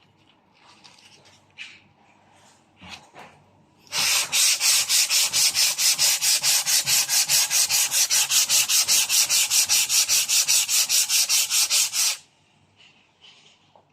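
Hand sanding block rubbed rapidly back and forth over a surface, a loud, even scratching at about five strokes a second that starts about four seconds in and stops abruptly some eight seconds later. A few faint handling clicks come before and after.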